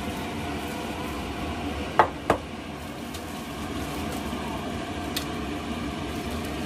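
Two quick clinks a fraction of a second apart, a stainless steel mixing bowl knocking against a dish as food is scraped out of it, with a smaller tick a few seconds later, over a steady background hum.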